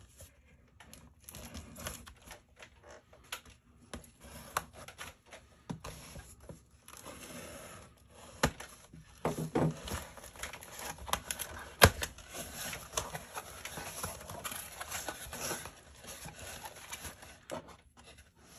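A cardboard shipping box being handled and opened by hand on a wooden desk: scraping and rustling of cardboard as the box is turned, cut open and its flaps pulled back, with scattered small knocks and clicks. One sharp click stands out about twelve seconds in.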